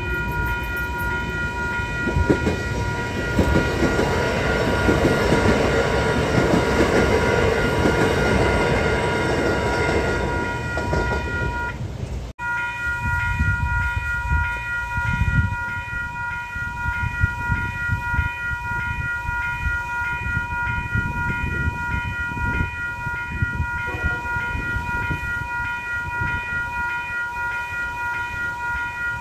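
Level crossing alarm bells ringing steadily. For the first twelve seconds a loud rumble swells and fades under them; after an abrupt break about twelve seconds in, the bells carry on over a lower rumble.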